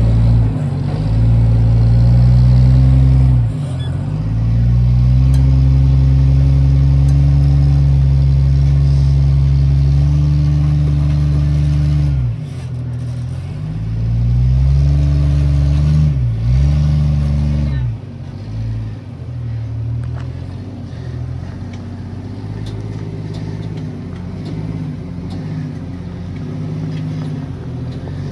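Rock-crawling rig's engine revving under load as it crawls over rocks, the revs rising and falling and dropping briefly three times. After about eighteen seconds it settles to quieter, steadier running.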